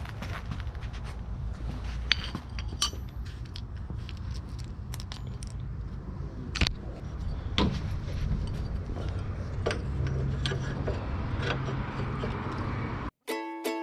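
Bolts, washers and metal mount parts clinking and clicking as they are handled, in scattered single clicks over a steady low rumble. Near the end the sound cuts out briefly and ukulele music starts.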